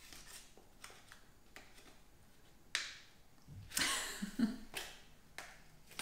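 Scissors snipping at a small sealed package: a handful of short, sharp snips spread over several seconds, with a rustle of packaging about four seconds in.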